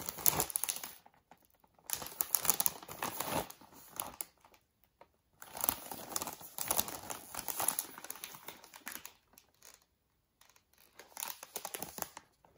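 Plastic snack bag crinkling as gloved hands turn it over, in about four bursts of rustling with short pauses between.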